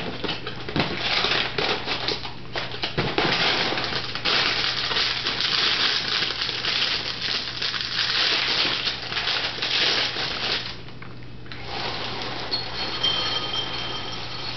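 Plastic inner bag of a cereal box crinkling and crackling as it is pulled open, for about ten seconds. After a short lull, Cheerios are poured from the box into a bowl near the end.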